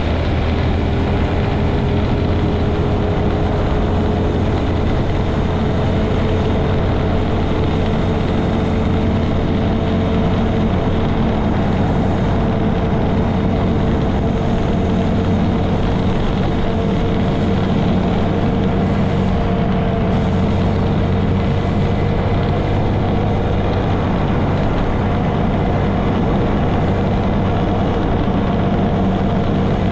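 Honda Grom 125's air-cooled single-cylinder four-stroke engine running steadily, its tone rising slowly and slightly in pitch.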